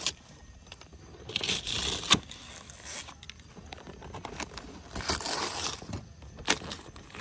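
Gift-wrapping paper being torn and crinkled off a cardboard box in two spells, one starting about a second in and one about five seconds in, with a sharp snap of paper about two seconds in.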